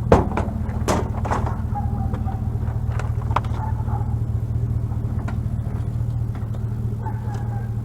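Vehicle engine idling steadily, with a few sharp knocks in the first second and a half.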